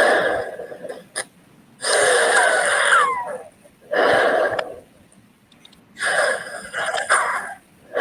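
Recording of a wheezing person breathing: about four rasping breaths with pauses between them. High whistling tones sound at the tail ends of the breaths. The whistle is the sign of narrowed airways.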